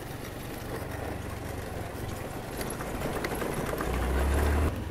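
Honda Activa scooter's single-cylinder engine running with tyre rumble over a rough, stony dirt track. The low hum grows louder toward the end, then drops back shortly before it ends.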